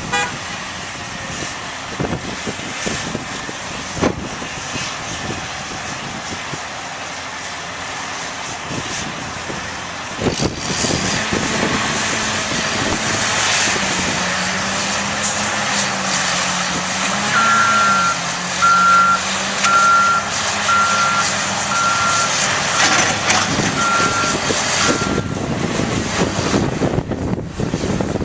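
Diesel engines of heavy earthmoving machines running under load, with scattered clanks and the engine note rising and falling. About halfway through, a back-up alarm beeps steadily for several seconds as a machine reverses.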